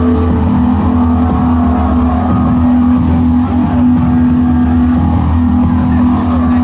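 An engine running at a steady speed, a constant droning hum.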